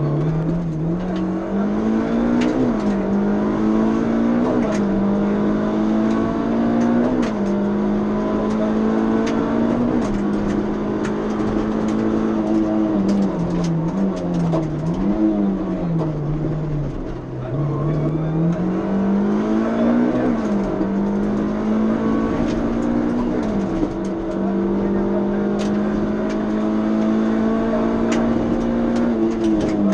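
Suzuki Swift PS16 rally car's 1.6-litre engine heard from inside the cabin at full attack. It climbs in pitch and drops sharply at each upshift, several times over. About halfway through it falls away on braking and downshifts, then pulls hard up through the gears again.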